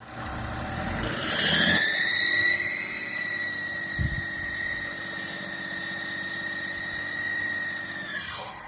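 BMW X5 E53 3.0d M57 diesel engine running with a loud, high whistle (howl): the whistle climbs in pitch about a second in, holds steady, then falls away and stops near the end. The owner suspects the turbocharger; the whistle shows between 1200 and 2000 rpm.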